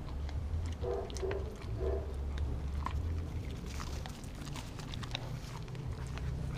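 Dog chewing and licking raw meat up close: irregular clicks and smacks of mouth and teeth, with two short pitched sounds about a second and two seconds in, over a low steady rumble.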